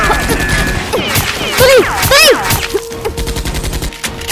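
Rapid automatic gunfire sound effects over music, with two loud rising-and-falling cries about one and a half and two seconds in; the firing stops near the end.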